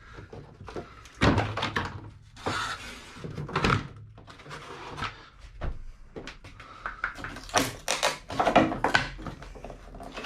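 Irregular thuds, knocks and scraping as ply lining panels and their rusty fixing bolts are worked loose inside a van's load area.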